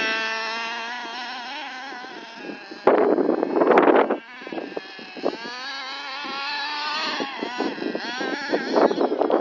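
FTX Carnage nitro RC truck's small glow-fuel engine revving up and down, its pitch rising and falling, fading as the truck drives off into the distance. A loud burst of noise about three seconds in and more near the end briefly drown it out.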